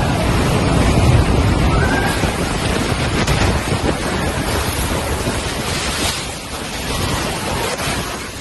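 Strong storm wind gusting hard, a loud rushing noise with heavy low buffeting on the microphone that eases a little near the end.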